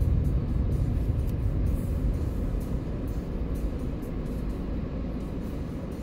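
Car cabin rumble of road and engine noise while driving, easing off a little as the car slows in traffic.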